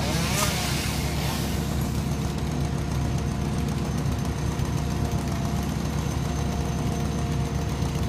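Bucket truck's engine running steadily to power the raised boom, with a constant low rumble and a steady hum. A brief hiss about half a second in.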